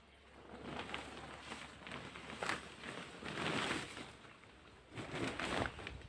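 Plastic sheeting of a low seedling tunnel rustling and crinkling on and off as it is pulled back by hand.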